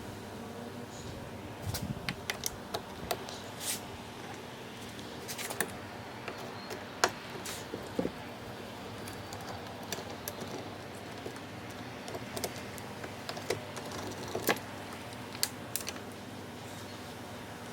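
Irregular light clicks and taps of small plastic parts being handled on a car's side-mirror and turn-signal housing, over a steady low hum.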